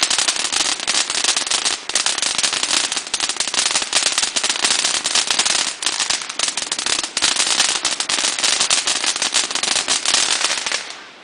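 Ground spark fountain firework spraying with a loud, dense, continuous crackle that dies away near the end as the fountain burns out.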